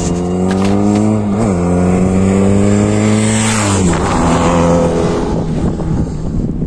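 Motorcycle engine accelerating through the gears: its note climbs, drops at a gear change about a second and a half in, climbs again and drops at a second shift near the four-second mark, with a brief rush of noise just before that shift.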